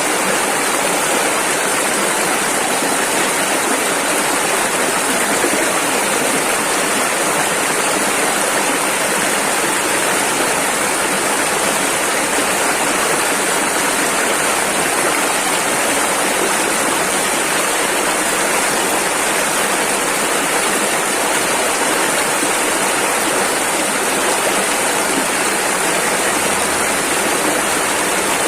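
Rushing river water, a steady full rush of flowing rapids with no breaks or separate events.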